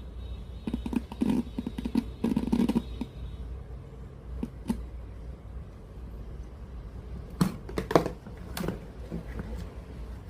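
Scattered clicks and knocks of hand work on a radio cassette player, bunched in two clusters, one about a second in and another near the end, over a steady low hum.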